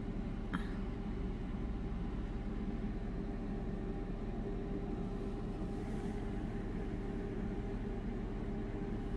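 Steady low hum with a couple of faint steady tones running under it, and a single light click about half a second in.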